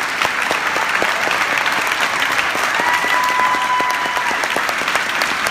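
Audience applauding steadily after a speech. About three seconds in, a single high held note, a whoop or whistle from someone in the crowd, rises over the clapping for about a second and a half.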